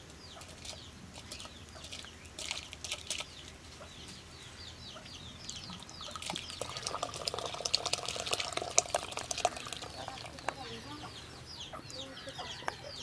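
Hens clucking and small birds chirping in rapid high chirps, over soft splashing as handfuls of soaked rice drop into a pot of boiling water.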